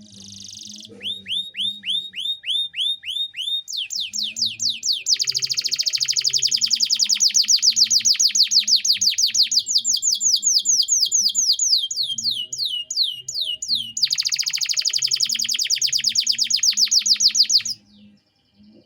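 Domestic canary singing a long, fast song made of trills: runs of rapid, repeated falling whistled notes that switch to a new trill every few seconds. The song stops shortly before the end.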